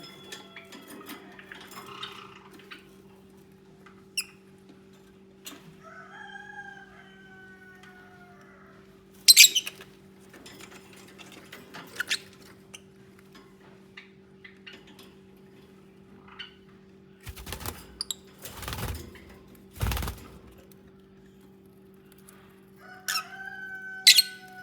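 Lovebirds calling: a few sharp, shrill chirps and drawn-out, slightly falling calls, about six seconds in and again near the end, with a cluster of low thumps from movement about two-thirds of the way through, over a steady low hum.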